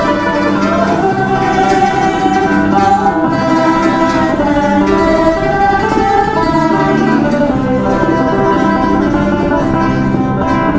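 Background music with plucked string instruments, steady throughout.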